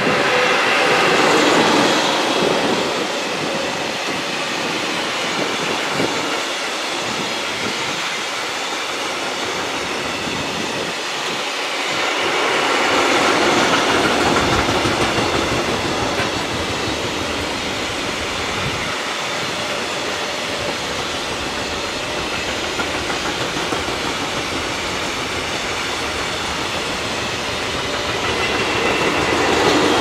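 Loaded Eas open freight wagons of a coke train rolling past on the track: a steady noise of steel wheels on the rails that swells louder three times as the wagons go by.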